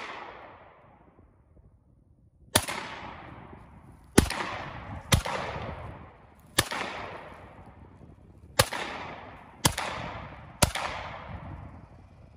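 Seven semi-automatic pistol shots fired one at a time at an uneven pace, about one to two seconds apart, each trailing off in a long fading echo; the echo of a shot fired just before is still dying away at the start.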